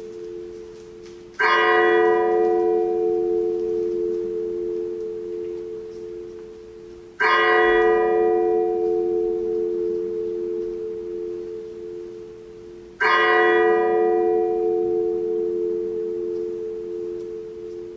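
A single bell tolling slowly: three strokes about six seconds apart, each ringing on and fading away before the next.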